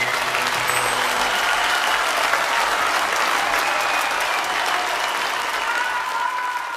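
Audience applauding after the song ends, with a few whistles near the end. The band's last held note dies away in the first second.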